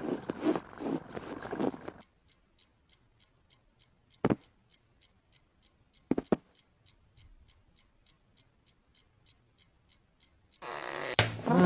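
Cartoon foley of a cat on a bed: rubbing and scratching on the bedcovers for about two seconds, then a quiet stretch of faint, even ticks about three a second with two sharper clicks, before loud rubbing on the covers starts again near the end with a short cat sound.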